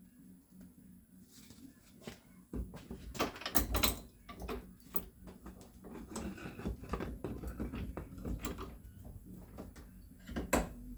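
Pneumatic rivet gun driving a custom tool in short bursts to bend the tabs of an aluminium bulkhead, with metal knocking and clatter. It starts about two and a half seconds in, with the sharpest hits around four seconds and again near the end.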